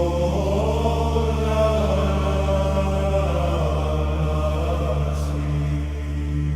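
Hymn music: chant-like choral singing over a steady low drone, the voices swelling through the first few seconds.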